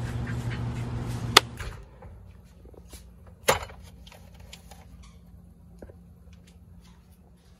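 A sharp plastic click from a Polaroid Spectra System SE instant camera as its film door is handled. About two seconds later comes a softer knock as something is set down on a refrigerator shelf, over a faint low steady hum.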